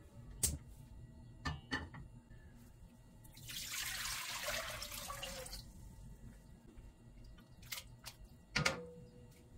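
Water poured from a wooden bowl into a cooking pot, splashing for about two seconds in the middle. Before it come a few sharp knocks of cookware, and near the end a clink with a short ring as a metal mesh strainer of pork meets the pot.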